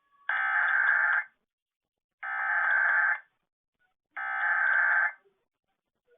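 Emergency Alert System SAME header: three identical bursts of buzzy digital data tones, each about a second long with a second of silence between them. These encode and open a required weekly test alert.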